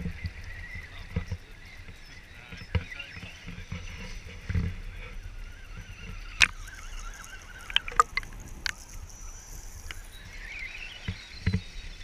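Axial Wraith RC rock crawler's electric motor and gears whining steadily as it drives through shallow river water, with water splashing and sloshing and a few sharp knocks. The whine rises in pitch near the end as the truck climbs out onto the rocks.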